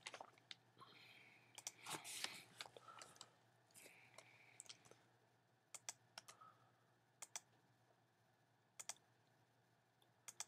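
Faint clicks of computer keyboard keys, a few separate strokes spaced a second or more apart, several in quick pairs, as the Enter key is pressed to add line breaks.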